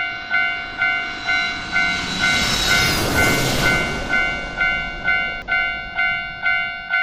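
Japanese level-crossing warning bell ringing its 'kan-kan' about twice a second, steadily, while a passing train's rushing noise swells to a peak midway and fades toward the end.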